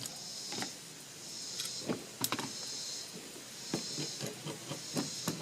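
Scattered clicks and short scraping sounds of locking pliers being adjusted and fitted onto the trimmer's plastic recoil starter.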